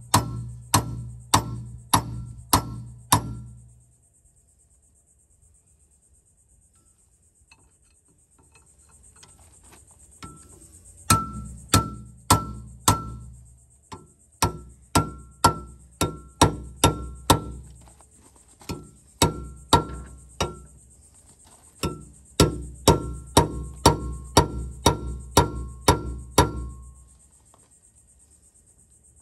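Heavy hammer blows on steel, about two a second, in several runs with short pauses between them; each strike rings with a clear metallic tone. The hammering is driving a seized cutter hub off its splined gearbox shaft.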